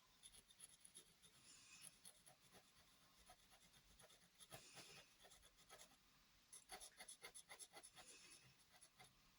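Faint scratching of a glitter gel pen's tip on paper, in short strokes and scribbles while the pen is swatched.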